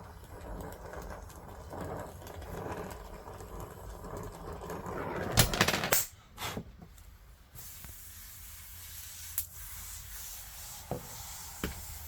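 Handling clatter and a loud rattling burst about halfway through, then a steady high hiss of nitrogen flowing through the refrigerant lines, with a few light taps near the end.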